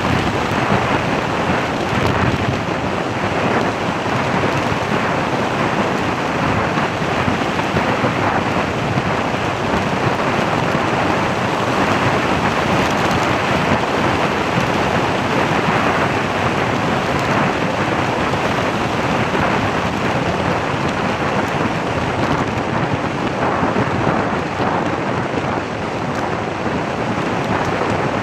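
Steady loud rushing noise of wind and road from a vehicle driving along, crackling on the microphone.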